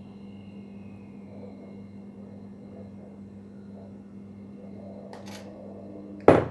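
Steady low hum, with a faint scrape of a spoon in a stainless steel mixer jar about five seconds in. Just before the end, a sharp loud knock as the steel jar is set down on the counter.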